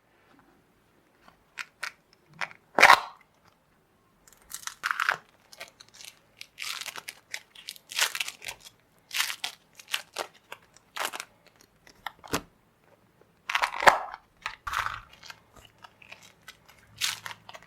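Clear slime being squished and worked by hand, giving irregular crackling pops and squelches as trapped air is pressed out.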